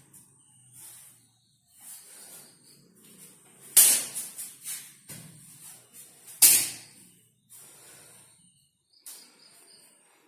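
A kalaripayattu practitioner working fast through a Thekkan Kalari form: soft rustling swishes of body and cloth movement, cut by two loud sharp smacks of strikes, one about four seconds in and another two and a half seconds later.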